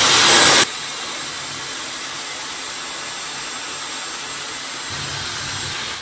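Dyson Supersonic hair dryer blowing air through its ring-shaped body, with a strand of hair threaded through the hole to dry the ends. A loud rush of air for about the first half second drops to a steady, quieter rush, which cuts off at the very end.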